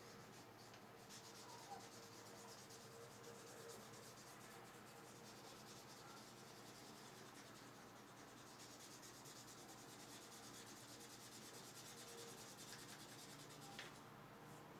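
Faint scratching of a black felt-tip marker drawing on folded paper, in quick short strokes, with a light tap near the end.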